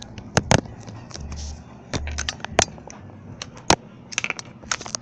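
Irregular sharp clicks and knocks, about a dozen, with a couple of dull low thumps: household clatter and handling noise.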